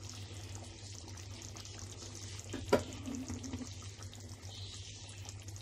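Faint steady hiss over a low hum, with one light click about two and a half seconds in.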